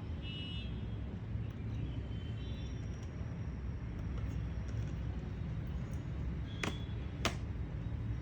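Steady low background rumble, like distant traffic, with faint high chirps and two sharp clicks about half a second apart near the end.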